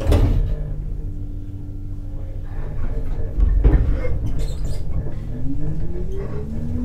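Keisei 3600-series electric train starting from a stand: a knock and low rumbles, then from about five seconds in the traction motor whine rising steadily in pitch as the train gathers speed.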